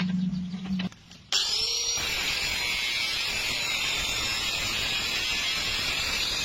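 Electric stick-welding arc giving a steady, loud frying hiss. It breaks off for about half a second about a second in, then resumes.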